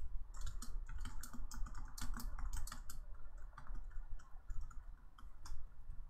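Typing on a computer keyboard: a run of quick, irregular key clicks, thickest in the first three seconds and thinning out toward the end, over a low steady hum.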